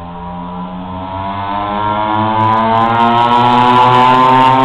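Two-stroke mini ATV engine buzzing as the quad approaches, growing steadily louder with its pitch rising slightly.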